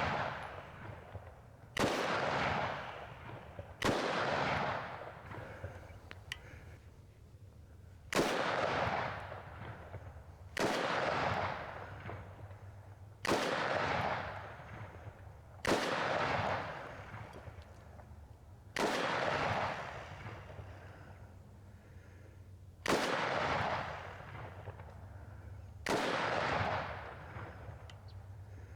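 Windham Weaponry AR-15 A2 rifle (5.56 mm) fired in single semi-automatic shots, nine of them spaced two to four seconds apart, each shot followed by a long echoing tail.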